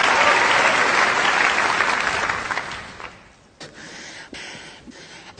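Audience applause, dying away about two and a half seconds in, followed by a quiet stretch with a few faint clicks.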